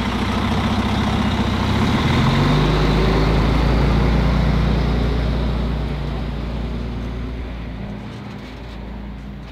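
Car-hauler truck's diesel engine pulling the loaded trailer forward: a steady low engine hum that changes pitch about two seconds in, is loudest soon after, then fades as the truck moves off.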